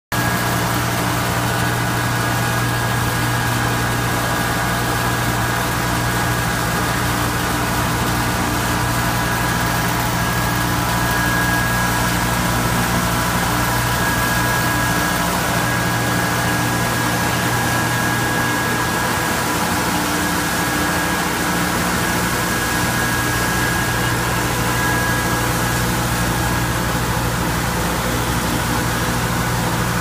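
Industrial continuous-conveyor microwave line and surrounding food-plant machinery running: a steady low hum with a thin, constant high whine above it.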